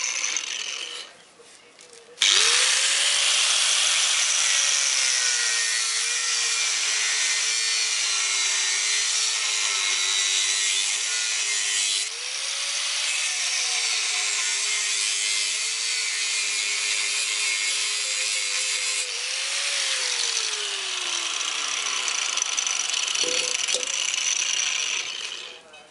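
Angle grinder with an abrasive cut-off disc cutting through the steel shell of a refrigerator compressor. It starts abruptly about two seconds in, and the motor's pitch sags as the disc bites and rises when it eases off. It stops near the end.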